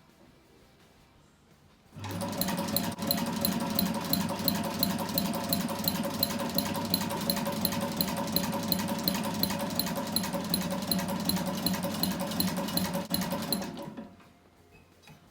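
Sewing machine running at a steady speed with a fast, even stitching rhythm, starting about two seconds in and stopping shortly before the end.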